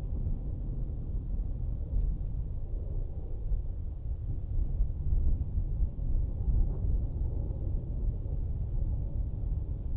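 Low, uneven rumble of an Airbus A320neo's Pratt & Whitney geared turbofan engines heard at a distance, with a faint steady whine joining in more than halfway through.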